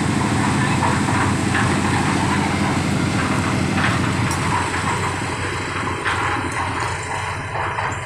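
Concrete mixer machine's engine running steadily with a low, fast pulsing, which eases somewhat about five seconds in.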